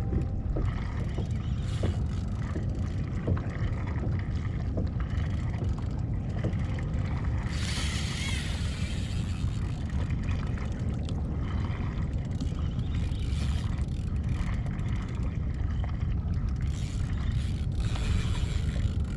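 Steady low rumble of wind buffeting the microphone, with sea water washing against the kayak hull and a brief louder rush of noise about eight seconds in.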